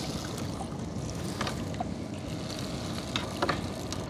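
Small fishing boat's motor running steadily, with a few faint clicks and knocks.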